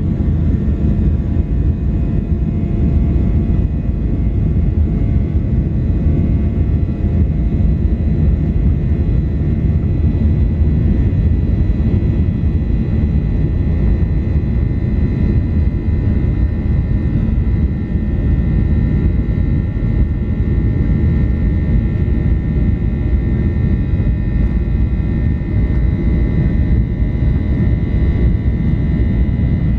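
Boeing 737-800 cabin noise from a window seat during takeoff: the CFM56 turbofan engines run at high power as a loud, steady rumble with a thin, steady whine over it.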